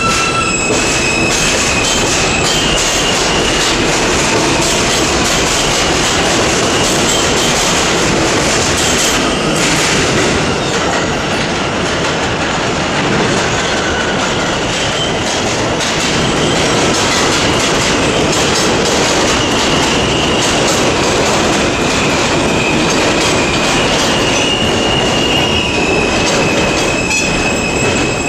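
New York City subway trains on an elevated steel line: an M train of R160A cars pulls out and other trains run in on the adjacent tracks. The steel wheels clatter over rail joints, and a high wheel squeal rises and fades several times.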